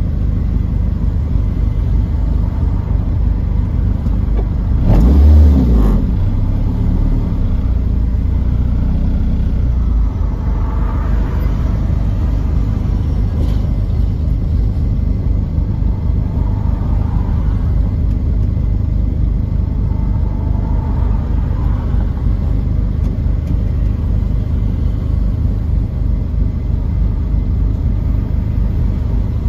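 Honda K20A2 2.0-litre inline-four idling steadily, heard from inside the car's cabin, with a brief louder rumble about five seconds in.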